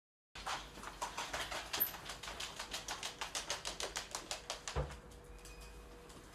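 A small pet's claws clicking rapidly on a wooden floor as it runs, several quick clicks a second, ending in a dull thump just before five seconds in.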